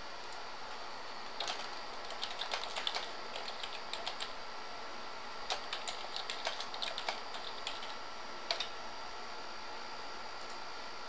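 Computer keyboard typing in short irregular bursts of clicks, with pauses between them, over a faint steady electronic hum.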